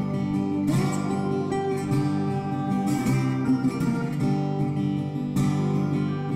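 Background music led by acoustic guitar.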